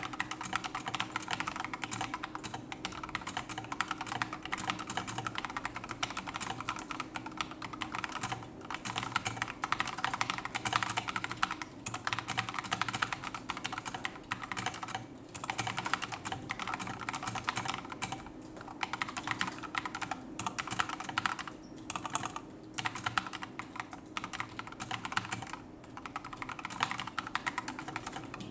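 Fast, continuous typing on a mechanical keyboard with SA profile doubleshot PBT keycaps and Akko CS Matcha Green switches, a dense stream of keystrokes broken by brief pauses every few seconds.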